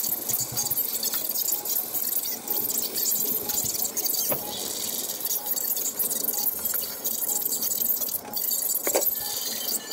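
A large aluminium pot of porridge boiling hard on a gas stove, bubbling steadily, with a light click or two.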